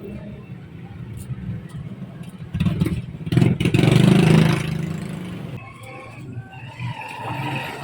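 A motor vehicle's engine passing close by, rising in level about two and a half seconds in, loudest around four seconds, then fading away.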